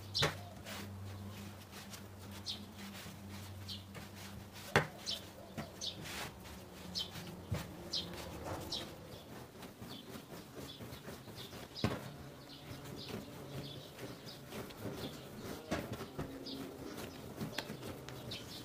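Hands working and rounding a ball of bread dough on a wooden table, with soft handling noise and two sharp knocks on the tabletop, about five and twelve seconds in. A bird chirps repeatedly in short high calls in the background.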